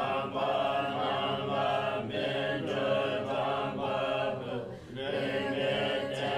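Tibetan Buddhist monks chanting a liturgy together in unison, several voices in held, even phrases, with a brief pause for breath about five seconds in.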